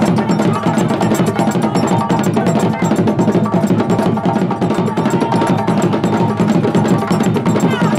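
Djembe and dundun drum ensemble playing a fast, dense dance rhythm, with a bright repeating click on top of the drum strokes.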